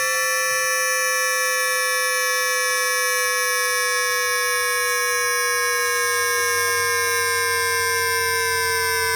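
Times Electric tPower-TN28 VVVF traction inverter on a Shenzhen Metro Line 14 train, picked up electrically by an inductor: a chord of many high, pure electronic tones, all sliding slowly and evenly down in pitch as the motor frequency falls. A low hum cuts off at the start and comes back faintly about two-thirds of the way through.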